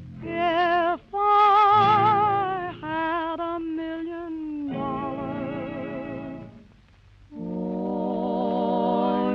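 Close-harmony vocal group recording sung with vibrato: several sung phrases with held notes, a short gap about seven seconds in, then a long held chord.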